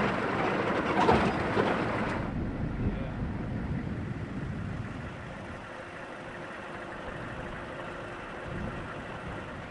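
Outdoor background noise: a loud rushing noise that drops suddenly about two seconds in to a quieter, steady hiss.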